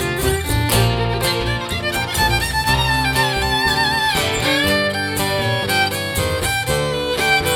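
Live country-bluegrass band playing an instrumental break: a fiddle carries the melody with sliding notes over strummed acoustic guitar and a steady low bass line.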